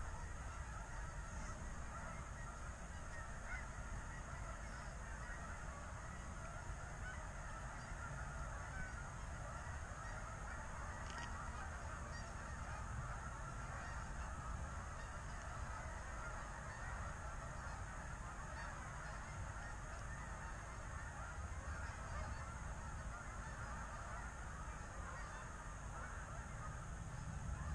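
A large flock of Canada geese honking overhead, many calls overlapping into a continuous chorus, over a low steady rumble.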